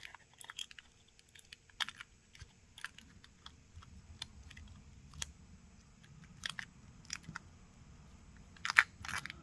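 Scattered small clicks and taps of a Galaxy Z Flip 5's motherboard and small parts being handled and seated into the phone's frame. A sharper click comes near the end.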